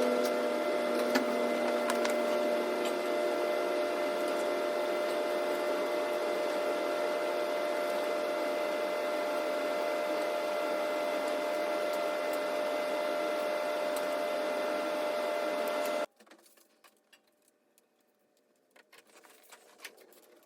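Small power tool motor running steadily at one speed, stopping abruptly about sixteen seconds in, followed by a few faint clicks and taps.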